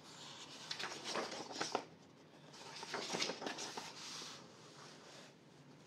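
Pages of a thin-paper paperback colouring book being turned and smoothed flat by hand: two spells of paper rustling and sliding, each lasting a second or two, the second ending about three-quarters of the way through.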